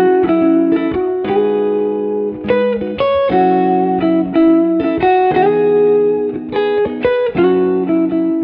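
Background music: a plucked guitar tune played as a quick run of separate notes over a steady lower note.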